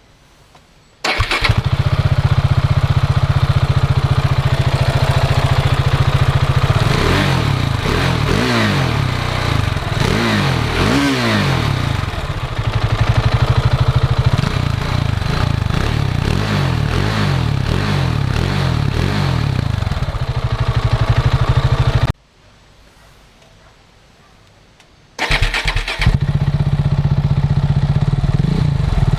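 KTM 690 Duke's single-cylinder engine started up, idling, and blipped with several quick revs, then switched off and started again a few seconds later.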